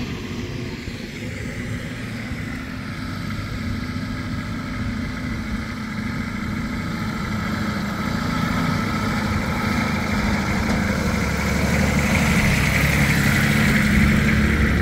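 Nissan Patrol 4x4's stock engine running as it crawls over rutted mud, growing steadily louder toward the end.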